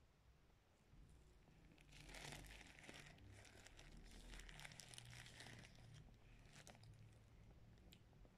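Faint crinkling and rustling of a clear plastic bag being handled close to the microphone, lasting about four seconds, then a few scattered crackles.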